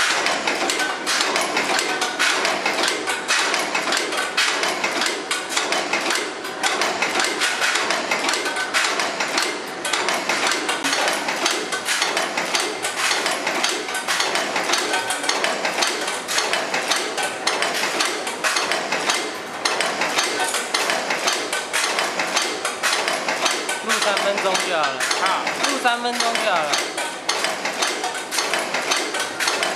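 LAN DEE LD20 one-die, two-punch semi-tubular rivet heading machine running: a steady, rapid metallic clatter of its punches striking the rivet blanks, several strokes a second.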